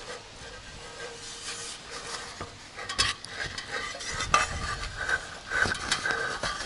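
Aluminium ladder being climbed: scattered knocks, clanks and scrapes of shoes and hands on the metal rails and rungs.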